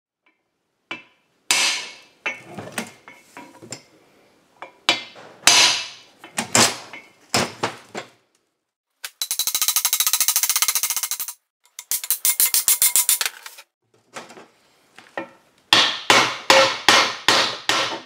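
Hammer blows on a steel round-baler roller as its end bearing is driven into place: single sharp metal strikes, then two stretches of fast rattling blows in the middle, and a quick run of strikes near the end.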